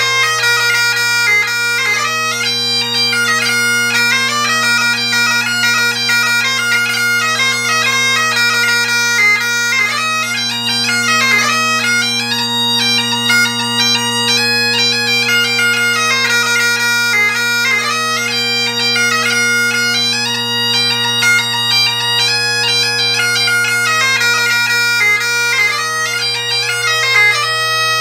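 Great Highland bagpipe played solo: a lively dance tune on the chanter, fast and ornamented, over the steady, unbroken hum of the drones.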